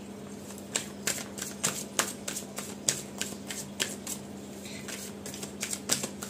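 A deck of tarot cards being shuffled by hand: a run of short, sharp snaps, about three a second, starting about a second in, thinning out for a moment past the middle and picking up again near the end.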